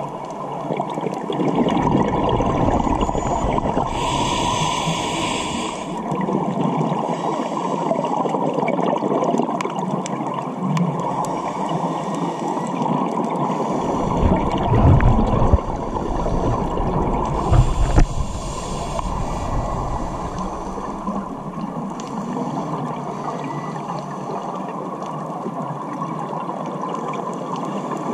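Muffled underwater sound of a scuba dive: a steady rushing of water against the camera housing, broken by the gurgling bubble bursts of a diver's regulator exhaling, with a brief hiss about four seconds in and a few heavier bubbling surges a little past the middle.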